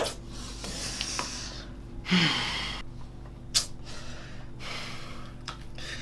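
A man's breathy gasps and exhalations, the loudest a short voiced gasp about two seconds in, over a steady low hum.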